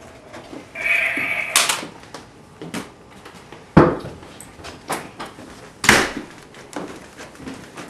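A door creaking briefly, then three sharp bangs and knocks, the loudest about four and six seconds in.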